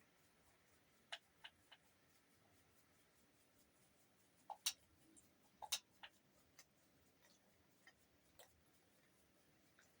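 Near silence broken by about a dozen irregular sharp ticks. The loudest come as two quick pairs in the middle.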